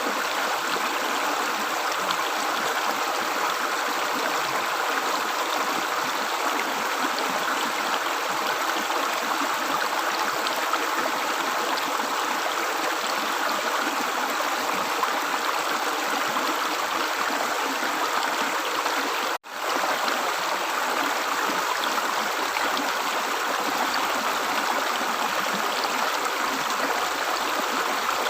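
Stream water gurgling and flowing steadily, with a split-second gap about two-thirds of the way through.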